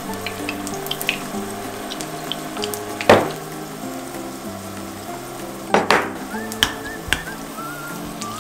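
Whole garlic cloves frying in oil in a frying pan: a steady sizzle. Two louder sharp noises stand out about three and six seconds in, with a few smaller clicks. Soft background music plays underneath.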